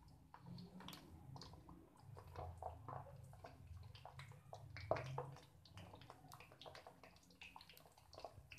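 Eggplant slices frying in hot oil in a pan: faint sizzling and crackling, with soft taps as more slices are laid in one by one, the loudest about five seconds in.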